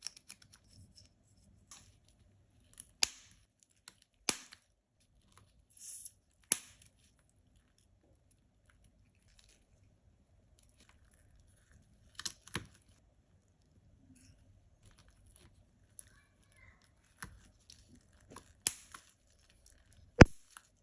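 A corgi-shaped stress-relief toy being squeezed, giving a string of sharp pops, scattered a few seconds apart with the loudest near the end, and soft crinkling between them.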